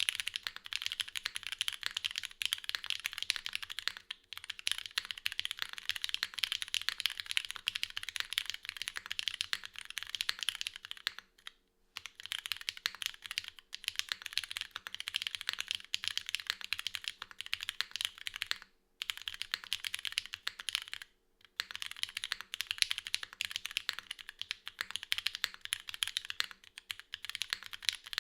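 Fast, continuous typing on a Geonworks F1-8X V2 gasket-mounted mechanical keyboard with an aluminium plate, no foam, lubed Cherry HG Black linear switches and GMK doubleshot keycaps: a dense stream of keystroke clacks, broken by a few brief pauses.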